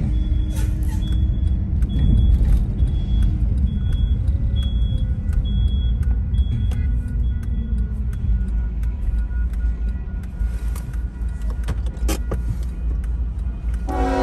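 Car engine and road rumble heard from inside the cabin as the car drives and slows to a stop at a railroad crossing, with a high beep repeating about once a second through the first half. Near the end a train horn starts to blow.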